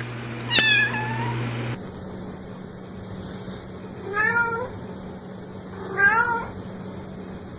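Kittens meowing: three short meows, the first gliding down in pitch and the other two a few seconds later, each rising then falling, over a low steady background hum that changes abruptly a little under two seconds in.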